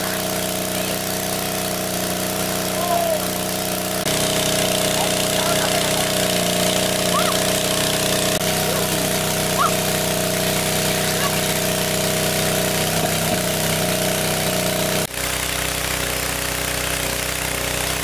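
Small engine of a large-capacity portable water pump running steadily under load, drawing water through a wide suction hose and driving it out in a jet.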